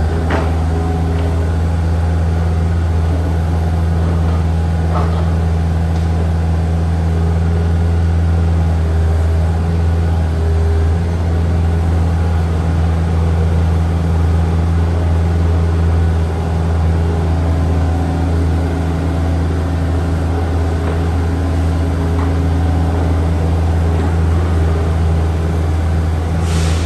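Takeuchi TB153FR mini excavator's diesel engine running steadily at high working speed, with small shifts in load as the hydraulics work.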